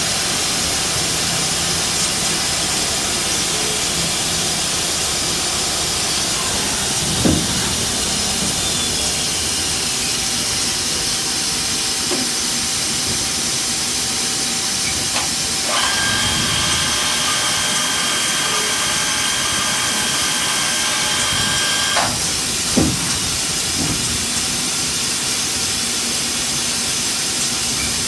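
CNC live-tooled turning center machining a PEEK part: a steady hiss throughout, with a steady high whine from a spinning tool or spindle for about six seconds past the middle, and a couple of sharp clicks.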